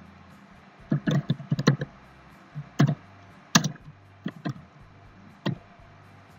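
Computer keyboard being typed on: a dozen or so separate key clicks in small uneven clusters, with short pauses between.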